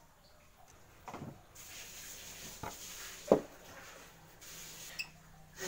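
A sawn wooden board being handled on a wooden saw table: a few sharp wooden knocks, the loudest about three and a half seconds in, with a scraping slide of wood on wood from about a second and a half to four and a half seconds.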